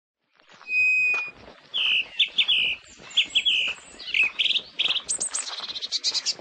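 Birds singing: a held whistled note near the start, then repeated short chirps and fast trills.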